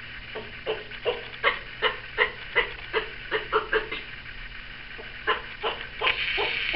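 A tortoise calling: a run of short, repeated calls, about three a second, with a pause of about a second partway through.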